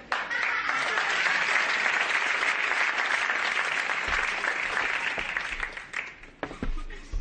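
Audience applauding, starting suddenly and fading out after about six seconds. A few sharp knocks follow near the end.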